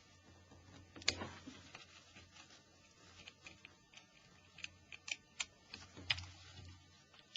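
Scattered sharp clicks and taps of small plastic parts of a Nokia 5140 phone being handled during disassembly: one loud click about a second in, then a quick run of clicks near the end.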